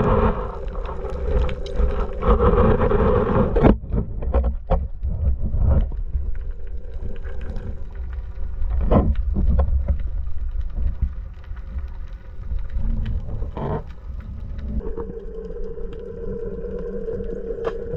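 Underwater sound picked up through a camera's waterproof housing: a steady low rumble with a droning hum for the first few seconds and again near the end, and scattered sharp clicks throughout.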